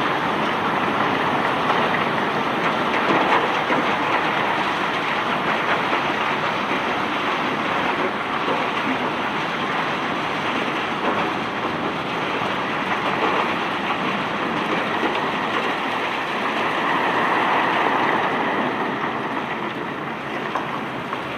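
White limestone rock pouring out of a barge in a steady, rattling stream.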